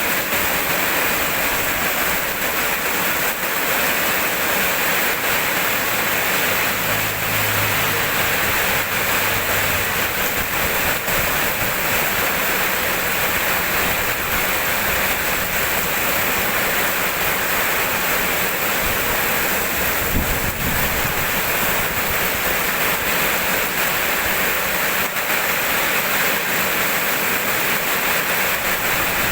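Steady heavy rainfall, an even hiss of falling rain, with a brief low rumble about two-thirds of the way through.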